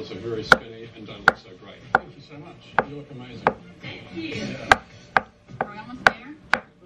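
Chef's knife slicing through an avocado onto a wooden cutting board: about ten sharp knocks of the blade on the board, a little over one a second and unevenly spaced.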